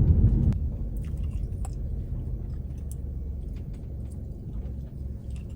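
Low rumble of a car on the move, heard from inside the cabin, dropping in level about half a second in, with faint scattered clicks.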